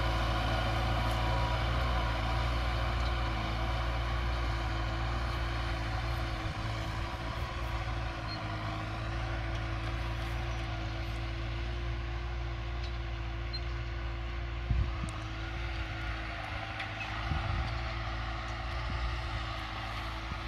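New Holland TT4.75 tractor's diesel engine running steadily under load while pulling a plough, growing slowly fainter as it moves away.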